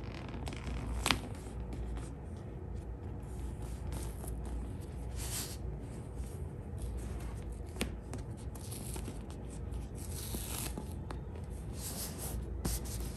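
Fingers pressing and rubbing a self-adhesive leather repair patch down onto a leather chair armrest: soft swishes of skin sliding over the patch, two louder ones near the middle and near the end, with a sharp click about a second in.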